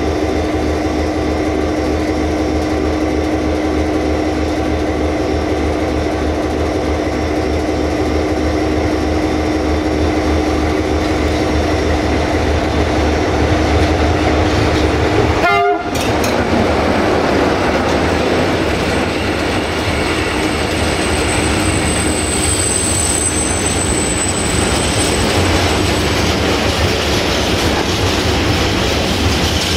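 Sulzer diesel engine of a CFR Class 60 (060-DA) locomotive running steadily as the loco approaches and passes about halfway through, its drone dropping in pitch as it goes by. After that comes the rolling noise of the loaded freight wagons passing, with clickety-clack of wheels over rail joints and a thin high wheel squeal for a few seconds.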